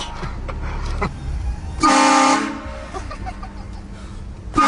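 Train horn sounding a short blast of several tones at once, about two seconds in, with a second blast starting right at the end, over a low rumble.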